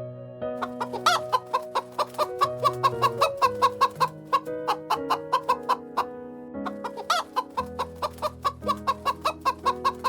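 Chickens clucking in a quick run of short clucks, about three or four a second, with a louder call twice, over soft background music of held keyboard notes.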